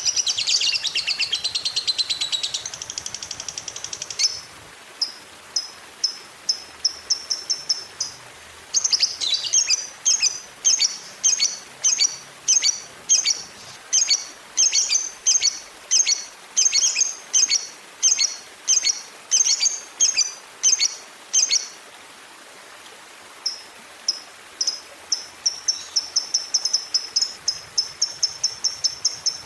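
Lovebird 'ngekek' call: a burst of dense high chatter, then a long series of sharp, high notes repeated about twice a second, a short pause, and a faster run of notes near the end.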